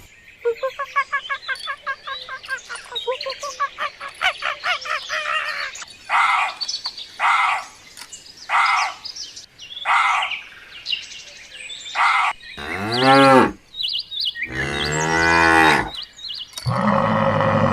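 A run of animal calls: rapid high chirps at first, then short calls about once a second, then two long, deep calls and a loud drawn-out call near the end.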